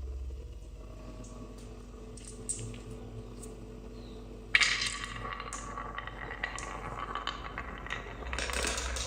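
Marbles clicking and rattling along a wooden marble run: a few scattered light clicks, then a sharp clack about halfway through and a busy stretch of clicking and rolling rattles.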